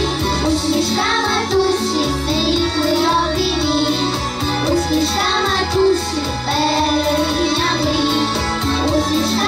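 A children's vocal ensemble singing into microphones over instrumental accompaniment, with a steady bass line under the melody.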